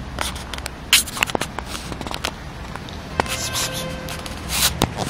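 Close rustling and scraping with a scatter of sharp clicks, loudest about a second in and again near the end.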